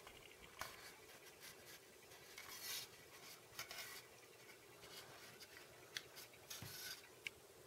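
Near silence, with faint scattered rubbing and a few small clicks from hands handling and turning a model starship.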